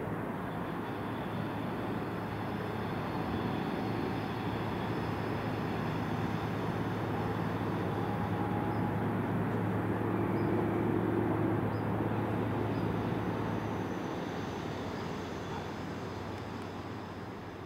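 Class 218 diesel locomotive running with a steady low engine drone that grows louder towards the middle and then fades away.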